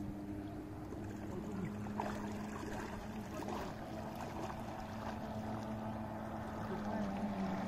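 Distant Polaris Virage 700 jet ski's 95 hp two-stroke engine running steadily at speed across open water, a steady drone that dips a little in pitch near the end.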